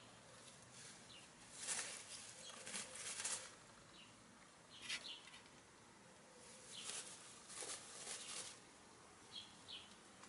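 Hens foraging close by: short rustling bursts from scratching and pecking in grass and soil, several times, with a few faint, short high chirps.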